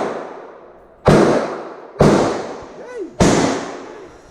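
Three gunshots from a Hi-Point carbine, about a second apart, each dying away in a long echo.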